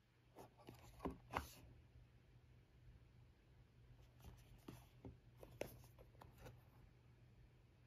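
Faint scrapes and taps of fingers handling and turning a small cardboard box, in two clusters: a few in the first second and a half, then more from about four seconds in.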